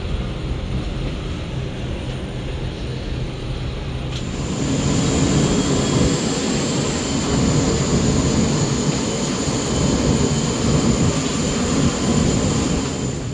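Jet airliner noise: a steady low rumble, joined about four seconds in by a louder rush with a steady high-pitched whine, which cuts off abruptly near the end.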